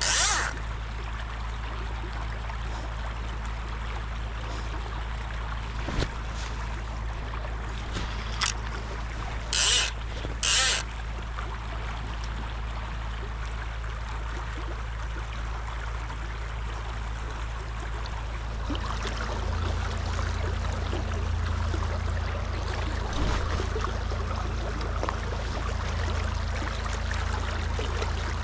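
River water running steadily around a wading angler, with a few short swishes of fly line during casting in the first half. A steady low hum comes in about two-thirds of the way through.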